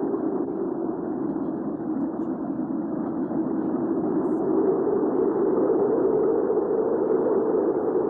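Hurricane wind ambience: a steady, deep rush of strong wind that swells slightly partway through.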